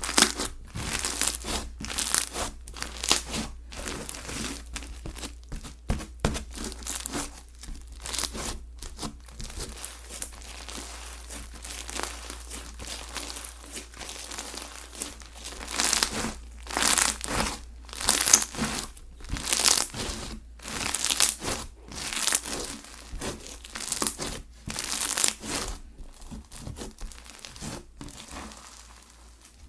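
Slime being squished, stretched and pressed by hand, making a steady stream of irregular crinkly, crackling pops that come in louder clusters.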